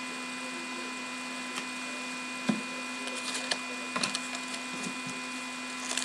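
Steady background hum, with a few light taps and rustles of trading cards and foil packs being handled on a tabletop, the clearest tap about two and a half seconds in.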